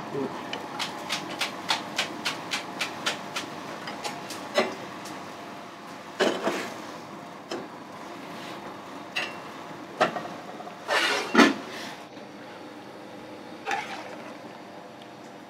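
Kitchen work sounds: a run of even knocks, about three a second, for the first four seconds, then scattered knocks and clatter, loudest about eleven seconds in, over a steady faint hum.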